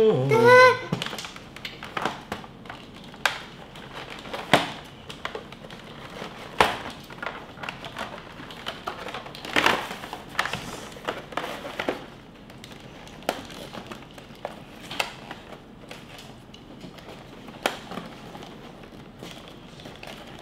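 Cardboard and plastic toy packaging rustling and crinkling while plastic toy parts are pulled out and twist-tie retaining wires are undone, with scattered sharp clicks and taps of hard plastic pieces.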